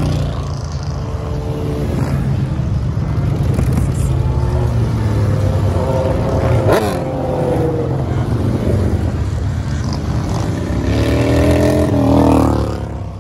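A procession of motorcycles, cruisers and touring bikes with a sport bike among them, riding past one after another at low speed. Each engine's pitch glides down as it goes by, and the loudest pass, a touring bike, comes near the end.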